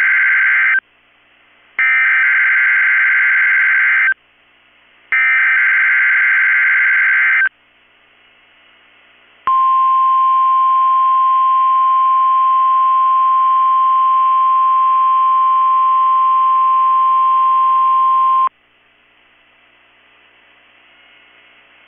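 NOAA Weather Radio EAS/SAME digital header: the end of one burst of harsh, buzzy data screech, then two more bursts of about two seconds each with short pauses between. After a pause comes the 1050 Hz weather radio warning alarm tone, a steady single loud tone lasting about nine seconds, then low static hiss.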